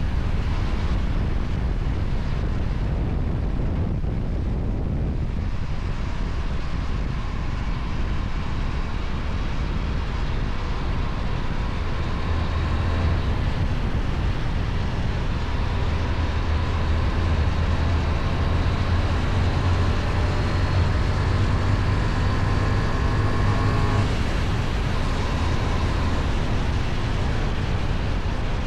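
Kove 625X Adventure motorcycle engine running through its stock exhaust while riding, a steady drone with wind on the microphone. The note grows stronger and deeper through the middle, as under more load, and eases late on.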